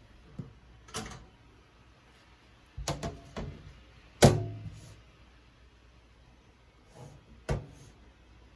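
Scattered knocks and clunks of kitchen things being handled and set down, about half a dozen, the loudest about four seconds in.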